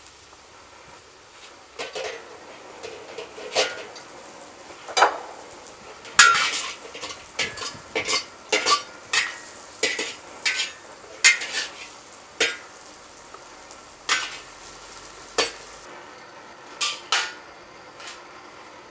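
Metal ladle and spatula scraping and clanking against a hand-hammered wok as stir-fried vegetables are tossed, over steady sizzling. The sizzle drops near the end as the wok is lifted off the flame.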